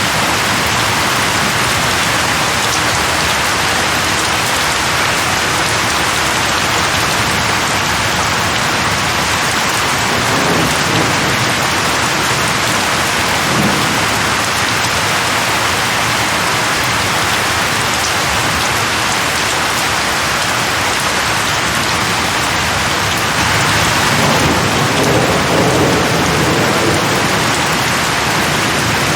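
Steady heavy rain. A low rumble swells in twice, the longer and louder one near the end.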